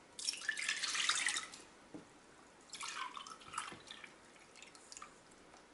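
Milk poured from a glass measuring mug into a stainless steel pot: a splashing pour lasting just over a second. After that comes a quieter, uneven trickle of milk poured from a carton into the glass mug.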